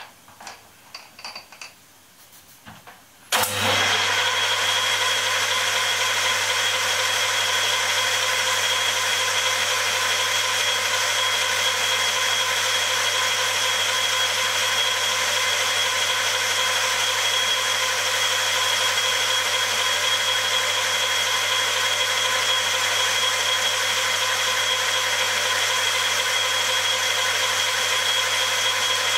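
A few light clicks, then about three seconds in a metal lathe is switched on and runs steadily: its motor and headstock give a constant hum with several steady whining tones.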